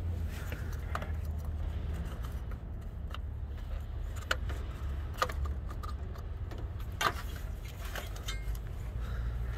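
Parts handled by hand under a truck's hood give a few sharp metallic clicks and light rattles, heard over a low, steady rumble.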